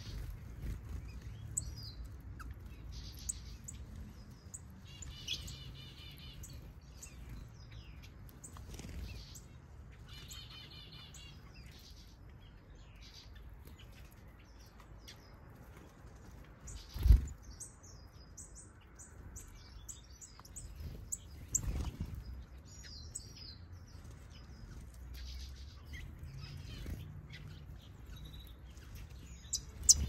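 Small aviary birds chirping and calling, many short high calls with a couple of fast, evenly repeated trills. Over a low background rumble comes one loud dull thump a little over halfway through, with a smaller one a few seconds later.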